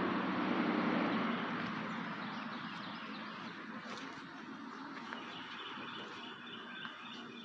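Outdoor background noise: a steady rushing hum, loudest in the first second or so and slowly fading, with faint bird chirps near the end.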